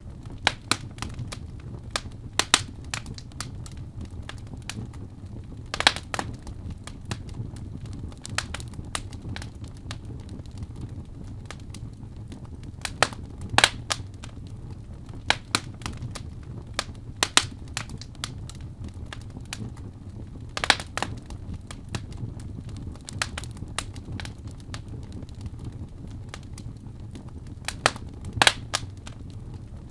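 Wood fire burning in a fireplace: irregular sharp crackles and pops from the burning logs, a few louder pops among them, over a low steady rumble.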